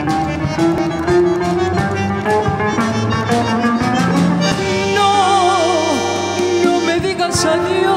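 Live band playing a song's instrumental intro: bandoneón, electric guitar, bass guitar and drum kit, with steady drum strikes under sustained notes. About five seconds in, a wavering melody line rises above the band.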